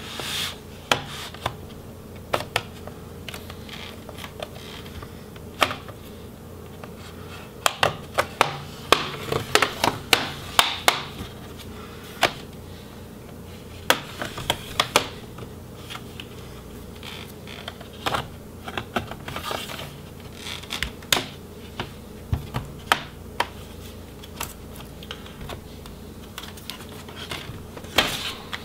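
Plastic snap clips on a Dell G3 3579 laptop's bottom case popping loose as a pry tool works along the seam with the palm rest. The clips go as irregular sharp clicks and snaps, some single and some in quick runs, with handling knocks near the end as the laptop is turned over.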